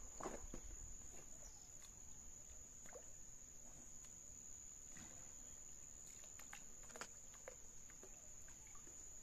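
Near-silent outdoor ambience: a steady high-pitched insect drone, with a few faint soft clicks and knocks scattered through it.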